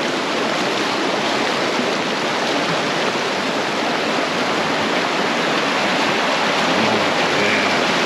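Fast-flowing creek water rushing loudly and steadily close by.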